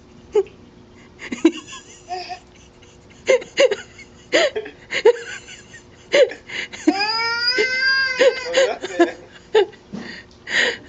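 A baby's voice: a string of short, high-pitched grunts and squeaks, then one longer whining cry about seven seconds in that rises and falls in pitch.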